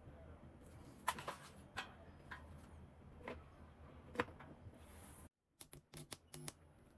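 Faint scattered clicks and taps over a low hum: a handful of single clicks, then a quick run of several near the end.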